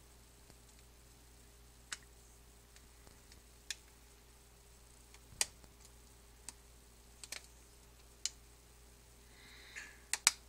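Small sharp plastic clicks and taps, irregularly spaced, as the plastic midframe of an Alcatel One Touch Fierce smartphone is pressed and snapped back into place over its circuit board, with a quick pair of clicks near the end. A faint steady hum lies underneath.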